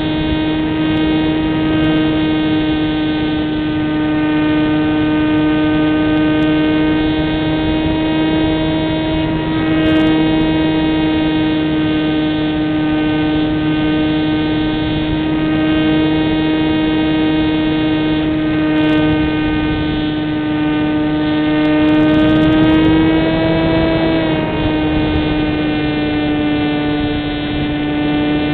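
Wing Dragon RC model plane's electric motor and propeller, heard from the onboard camera, whining at a steady pitch over airflow noise. The pitch creeps up about three-quarters of the way through, then drops a step.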